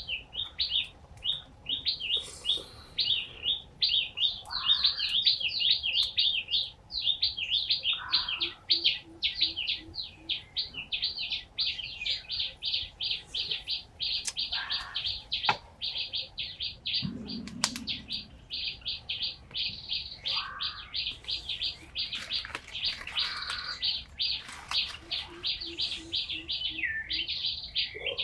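Small birds chirping continuously in a fast, dense run of short high chirps, with a few lower calls now and then. A short low pulsed trill comes twice.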